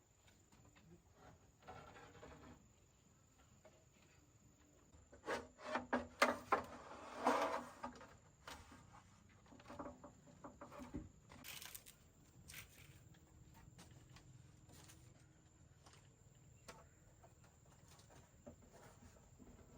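Wood being handled: scattered knocks and scraping of poles or timber, with a run of louder clacks about five to eight seconds in.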